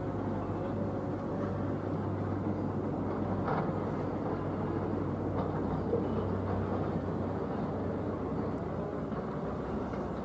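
ATR 72-600 twin-turboprop airliner flying over on approach to land: a steady drone from its two Pratt & Whitney PW127 engines and propellers, with a low hum under it.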